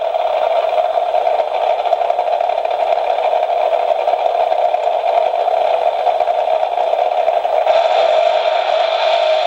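Drag-racing Christmas tree alarm clock sounding its alarm through its small speaker: a steady, thin, noisy rush with no bass, turning brighter about eight seconds in.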